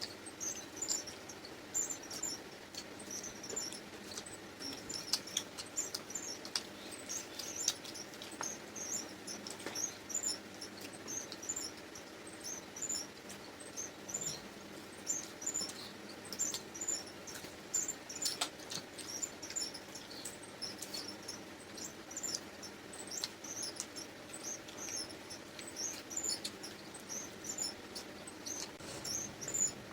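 Eating sounds of people chewing luchi with chicken curry: an unbroken run of small, quick mouth clicks and smacks.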